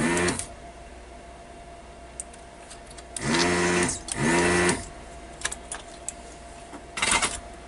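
Four short buzzes from a small electric motor: one at the start, two close together in the middle lasting about half a second each, and a brief one near the end. Light clicks fall between them, and a faint steady whine runs underneath.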